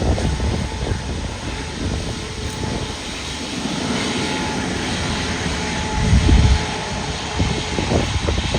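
Jet airliner noise from a Boeing 737 MAX 8's CFM LEAP-1B turbofan engines, a steady rushing sound with faint whining tones, and a louder low rumble about six seconds in.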